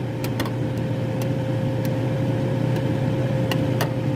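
A steady appliance hum with a thin high whine, under scattered light clicks of a metal fork against a tin can as beet pieces are speared.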